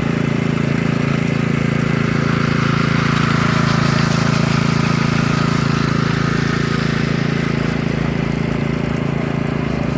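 Petrol engine of a concrete power trowel running steadily, with a slightly brighter, louder stretch around the middle.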